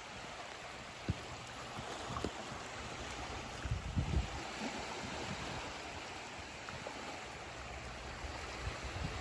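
Steady rushing of moving water, with a few short low thumps of wind on the microphone, the strongest about four seconds in.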